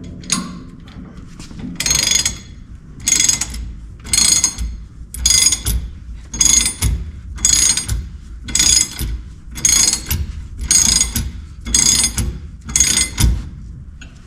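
Ratchet wrench being cranked in short strokes, its pawl clicking on each back-swing, about once a second, turning the screw of a bearing press tool to draw a split rear wheel bearing into the hub.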